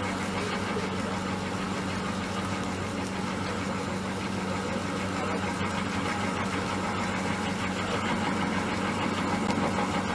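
Electric mochi-pounding machine running, its motor humming steadily with a low tone as the paddle turns and kneads a mass of steamed glutinous rice into mochi.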